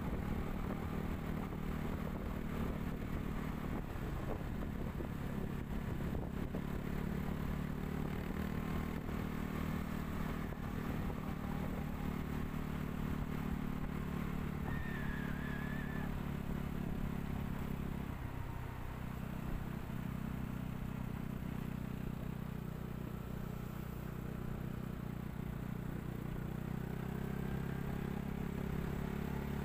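Motorbike engine running steadily while riding along a road, with tyre and road noise; the engine note dips briefly about two-thirds of the way through.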